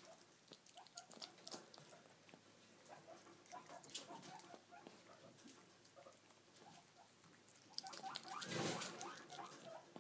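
Kinkajou eating a piece of soft fruit held in its paws: faint, irregular wet smacking, licking and small clicks of its mouth. About eight and a half seconds in there is a louder scuffling rustle lasting about a second.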